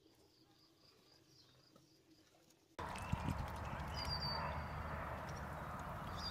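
Almost silent for about three seconds, then a sudden steady wash of outdoor sound from Canada geese feeding in shallow water, with a few small splashes or knocks as they dabble and a faint high bird chirp.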